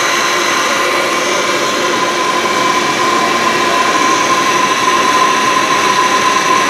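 Citizen M20 Swiss-type CNC lathe's driven live-tool spindles and their gearbox running steadily at 1500 RPM, heard from a couple of inches away: an even mechanical hum with a clear whine held at one pitch.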